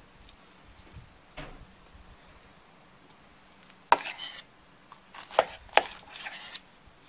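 A metal utensil scraping and knocking against a stainless steel bowl while scooping fish paste, in several short clattering bursts over the last three seconds.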